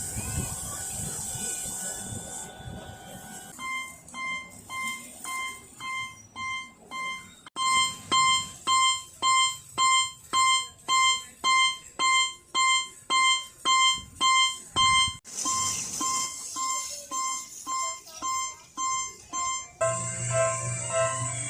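Electronic warning bells of miniature railroad crossings ringing their 'kan-kan' at a little over two strikes a second, one crossing's bell cutting to another's twice along the way. Near the end a lower-pitched crossing bell takes over. The bells start after a few seconds of steady hiss.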